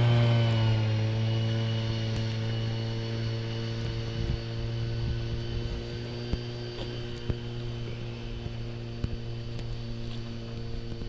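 A steady motor hum with a single held pitch and overtones, dropping slightly in pitch in the first second and then holding even.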